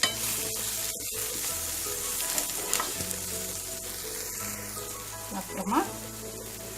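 Chopped onion, crushed garlic and turmeric powder sizzling in hot oil in a pan while being stirred, with a spoon scraping the pan a few times and most loudly near the end.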